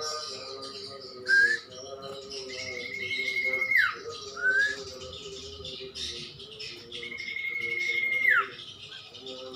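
Songbird known as cumpon or sirtu singing. Short rising chirps alternate with a fast, even trill held on one high pitch for about a second and a half, which ends in a quick downward swoop. The phrase comes twice.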